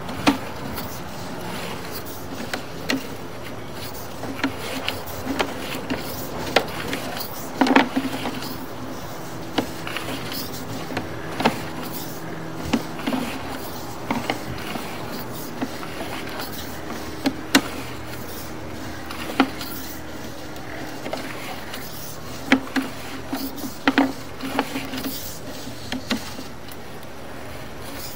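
Sewer inspection camera push cable being fed down the line: irregular clicks and knocks, about one every second or two, over a steady low hum.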